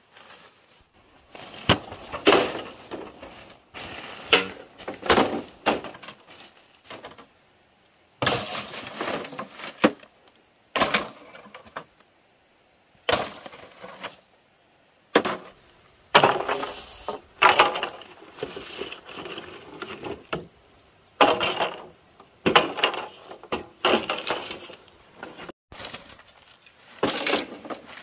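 Dry palm-leaf thatch and bamboo poles crackling, rustling and clattering in irregular bursts as they are pulled apart and dragged.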